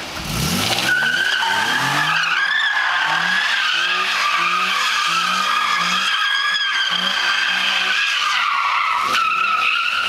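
2009 Infiniti G37's 3.7-litre V6 revving up hard, then its rear tyres squealing continuously through donuts, a wavering high screech over an engine note that rises and falls in short steps.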